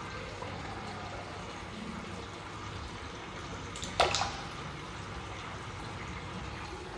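An alligator gar striking a piece of chicken at the water's surface: one sharp splash about four seconds in, over a steady background hiss.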